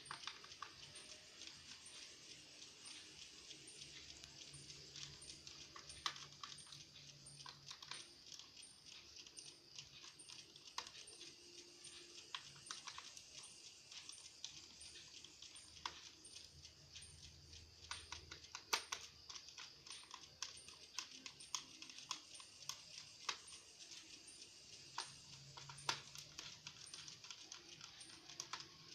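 Faint, irregular clicks and taps of small tools and plastic parts while an Asus 1015e netbook is being disassembled.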